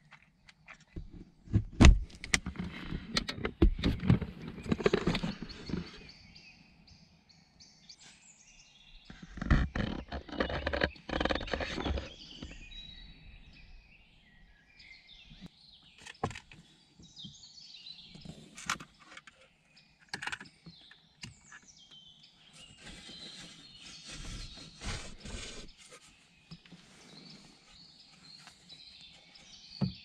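Birds singing in woodland, with two spells of loud close rustling and knocking: one starting about a second in and lasting several seconds, another from about nine to twelve seconds.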